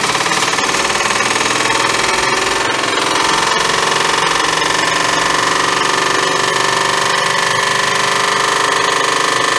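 Beko WM5140W washing machine, its drum motor hot-wired for maximum speed, spinning up with a brick loose in the drum: a rising whine that levels off into a steady high whine about three seconds in, with irregular knocks from the load throughout.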